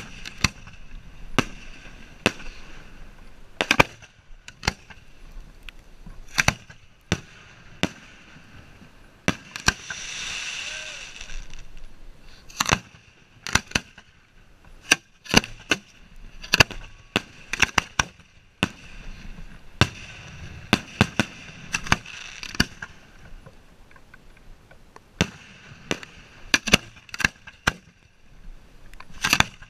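Fireworks going off at the firing line: many sharp bangs in irregular succession as the racked tubes fire, with a hiss lasting about two seconds, starting about ten seconds in.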